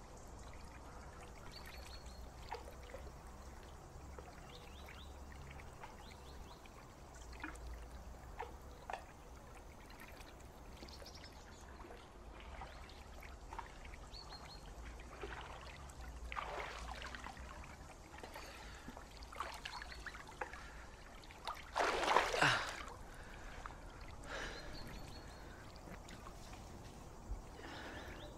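Water lapping and trickling in a garden swimming pool, with a louder splash lasting about a second two-thirds of the way through. Short bird chirps come now and then.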